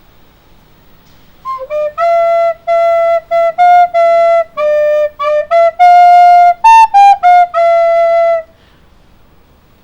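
A flute playing a short melody of separate, clearly tongued notes. It starts about a second and a half in, rises to its highest notes a little after the middle, and stops near the end.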